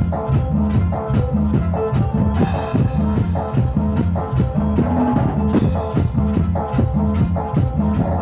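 Live band playing an instrumental passage on electronic keyboards, drum kit and guitar, with a steady, even beat.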